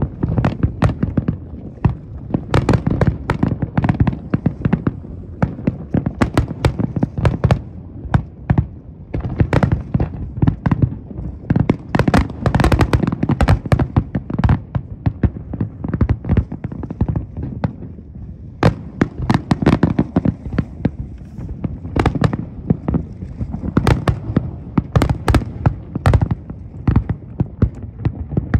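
Big fireworks display: a dense, continuous barrage of aerial shell bursts, deep booms under many sharp cracks and crackle, easing briefly about two-thirds of the way through.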